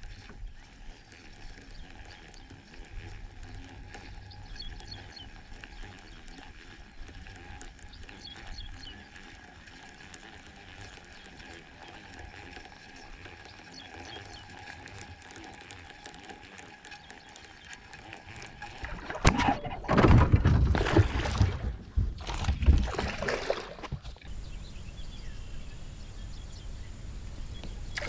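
Baitcasting reel being cranked to retrieve a lure, a faint steady whir from its gears. About two-thirds of the way in, several seconds of loud rushing noise cover it, then it drops back to quiet.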